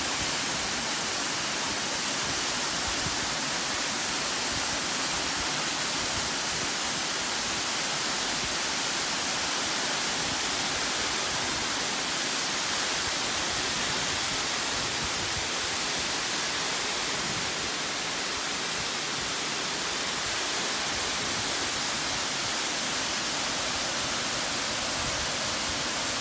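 Waterfall: a steady, unbroken rush of falling water, mostly hiss with little low rumble.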